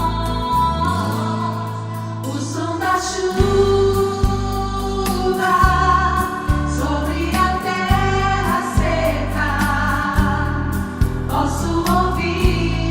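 Portuguese-language gospel song: sung vocals, choir-like in parts, over band accompaniment with sustained bass notes and a steady beat.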